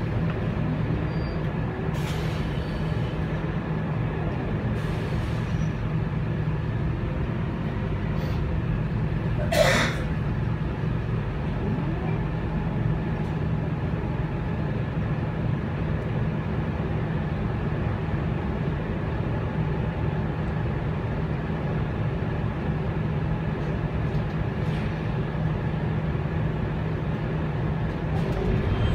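Scania K280UB bus with its 9.3-litre five-cylinder DC9 diesel running steadily under way, heard from inside the passenger cabin. A short, loud hiss about ten seconds in.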